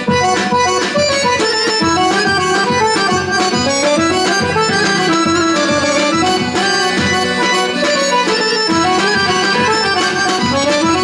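Accordion playing a Bulgarian folk tune, with a drum beating steady time.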